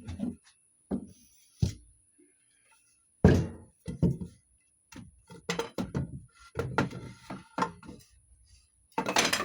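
Objects being moved around and set down on a shelf: a run of separate knocks and clunks, the loudest about three seconds in and a cluster near the end.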